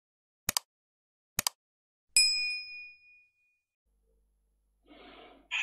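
Two short mouse clicks, then a single bright notification-bell ding that rings out and fades over about a second: the stock sound effects of a YouTube subscribe-button animation.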